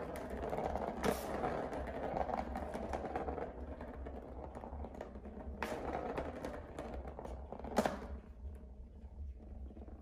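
Plastic ball rolling and rattling around the track of a circular cat track toy, with a few sharp knocks as a cat bats it against the plastic. The rolling dies down near the end.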